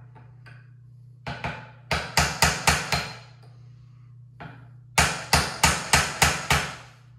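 Small hammer striking a steel punch against a rifle barrel, trying to drive out a rust-stuck sight-hood pin. The taps come in quick runs: two, then about six, then about seven after a pause, each a sharp metallic tap with a short ring.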